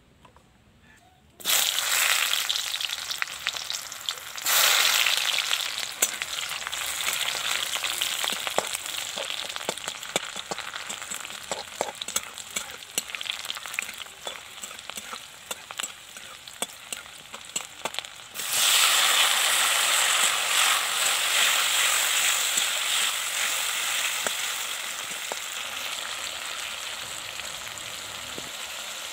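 Sliced onions frying in hot mustard oil in a steel kadhai, starting suddenly with a loud sizzle about a second and a half in, with the scrape and tap of a metal spatula stirring. About two-thirds of the way through, a fresh, louder burst of sizzling starts as more food goes into the oil, then slowly dies down.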